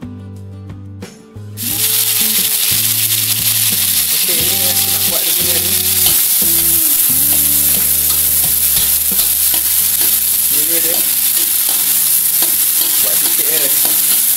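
Sambal paste of ground dried chillies and garlic sizzling loudly in hot oil in a wok while a spatula stirs it. The frying hiss cuts in suddenly about a second and a half in, after a moment of guitar music, and then holds steady.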